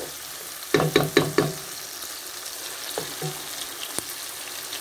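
Chicken pieces, king prawns and diced vegetables sizzling in a non-stick frying pan while a wooden spatula stirs them. A quick run of four or five sharp knocks about a second in, the spatula striking the pan.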